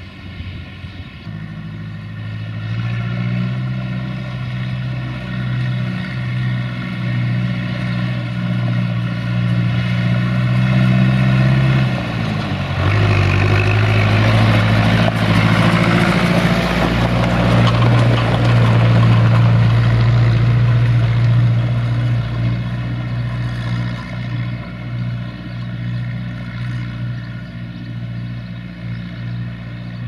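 John Deere 2040 tractor's four-cylinder diesel engine running under load as it pulls a loaded two-axle trailer past. It gets louder as it draws near, drops in pitch about twelve seconds in as it passes close, and eases off as it pulls away.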